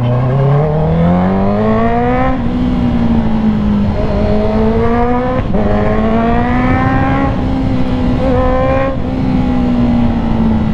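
Honda CB650R inline-four engine revving through a full titanium exhaust. The revs climb over the first couple of seconds and are held up with several short throttle blips, easing off near the end.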